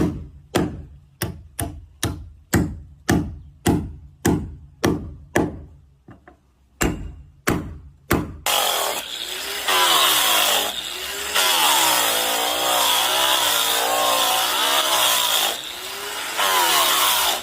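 Hammer driving nails into a wooden boat plank: a steady run of blows, two to three a second, a short pause, then three more. After that a continuous whooshing sound with wavering, gliding tones takes over.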